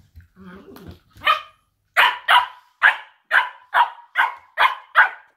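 Cocker spaniel barking in play fighting. A short low growl comes first, then one bark, then a quick run of eight high, sharp barks at about two a second.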